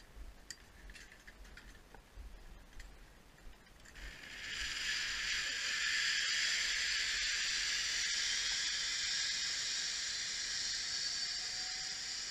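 Zipline trolley pulleys running along the steel cable: a loud, high hiss that starts about four seconds in and slowly fades as the rider moves away, after a few light clicks.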